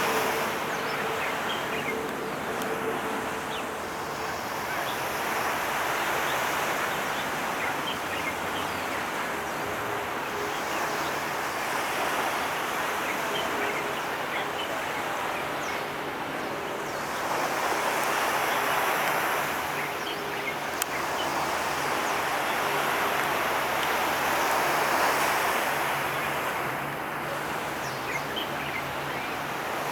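Waterside ambience: a rushing wash that swells and fades every few seconds, like waves breaking on the shore, over a low steady hum.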